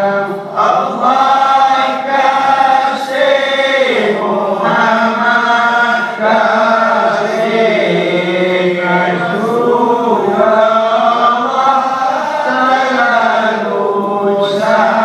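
A group of voices chanting together in unison, long drawn-out phrases with a slow, bending melody and short breaks between them: the sung verses of a Dabus dance.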